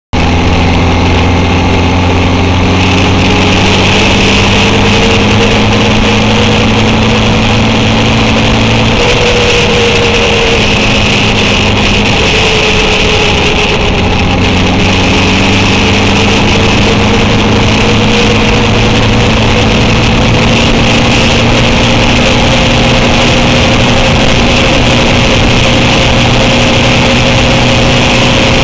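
Honda CB750's inline-four engine running under way, with a steady rush of wind and road noise. Its pitch rises and falls gently, dips about nine seconds in, and climbs slowly again from about fourteen seconds.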